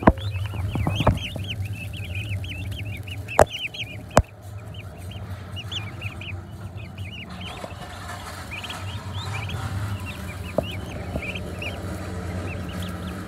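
Broad-breasted domestic turkey poults peeping: many high, quick cheeps, thickest in the first few seconds and again past the middle, over a steady low hum. Two sharp knocks come a few seconds in.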